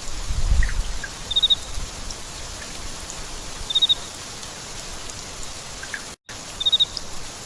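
Steady rain falling as an even hiss. A short, high four-note chirp is heard three times, and there is a brief low rumble about half a second in.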